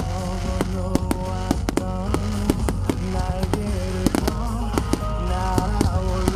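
Fireworks going off in a rapid, irregular series of sharp bangs and pops, over music with sustained melodic notes playing through loudspeakers.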